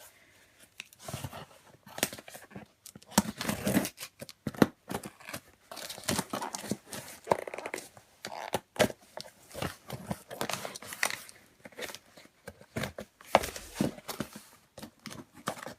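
A mail package being torn open and unpacked by hand: irregular tearing and crinkling of packaging, with sharp clicks and knocks.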